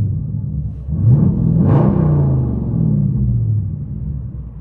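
Straight-piped 2010 Dodge Challenger SRT8's 6.1 L Hemi V8, heard from inside the cabin: about a second in, the exhaust note climbs sharply under a stab of throttle, then winds down slowly over the next few seconds. With the X-pipe and rear mufflers deleted, the exhaust runs open into quad tips.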